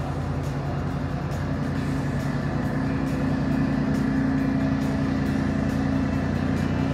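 Steady low drone of a boat's engine heard from on board, growing a little louder about three seconds in.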